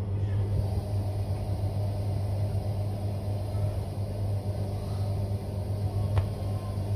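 A steady low rumbling hum, with a single sharp click about six seconds in.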